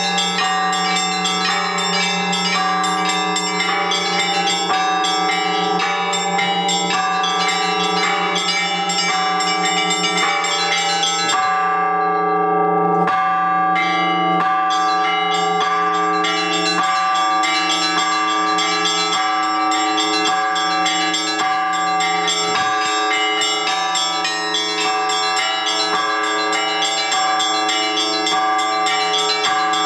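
Orthodox church bells rung together in a peal: a low bell's tone hangs under rapid, continuous strikes of smaller bells. The small bells drop out briefly about twelve seconds in, then resume.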